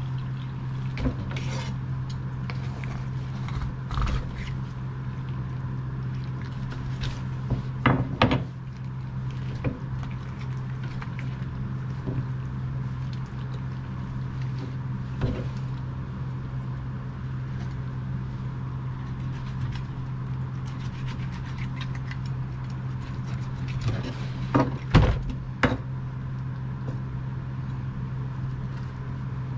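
Kitchen knife and rockfish being handled on a wooden cutting board while the fish is cleaned: scattered knocks, taps and scrapes, the loudest clusters about eight seconds in and near the end, over a steady low hum.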